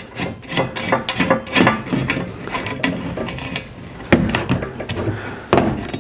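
Doyle hand rivet nut tool being worked on a sheet-metal plate: the handles squeezed to set a threaded insert, then the mandrel turned out of the set insert, giving a run of metal clicks, rattles and scraping. Two louder knocks come about four and five and a half seconds in.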